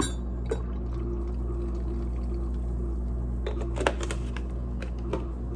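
Oat milk pouring from a carton into a large ceramic mug of coffee, over a steady low hum, with a few light knocks.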